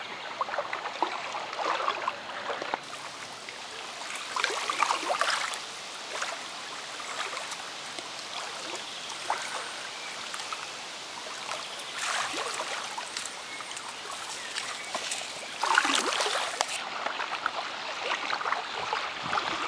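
Water splashing and lapping around a swimming beagle paddling through a lake's shallows, with louder splashy stretches about five seconds in, around twelve seconds and from about sixteen seconds.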